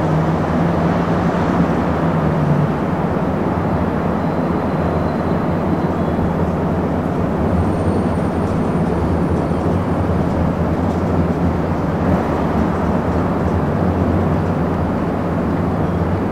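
Busy city traffic heard from afar as a steady low rumble of many vehicles, with faint high-pitched brake squeals about four seconds in and again about eight seconds in.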